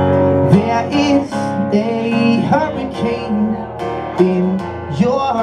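Acoustic guitar strummed in steady chords while a man sings along, a solo live acoustic performance.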